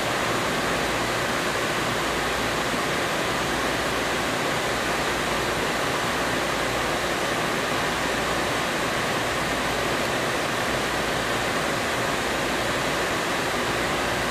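Steady, even rushing noise inside a San Francisco light rail car standing at a stop, with no change in level.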